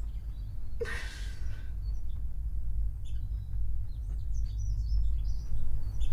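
Small birds chirping faintly and intermittently over a steady low rumble of room noise, with one short breathy exhale from a person about a second in.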